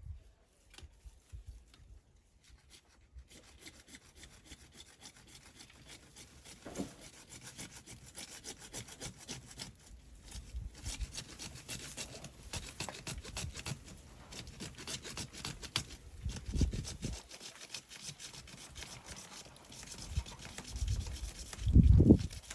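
Saw cutting through a PVC water pipe with fast, repeated rasping strokes, starting about three seconds in. A few dull thumps come near the end, the loudest just before it stops.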